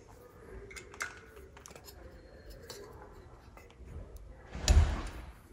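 Light metallic clicks and taps of a hex key turning a threaded block-off plug into the oil pressure sending unit port of a Honda D16 engine block, with a loud dull thump near the end.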